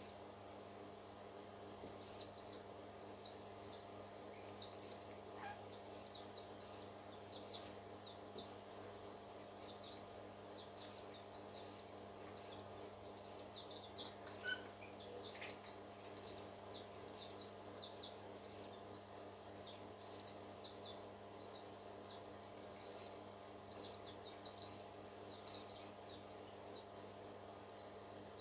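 Baby parrots peeping: quick high-pitched chirps in irregular runs, a few louder ones standing out, over a faint steady electrical hum.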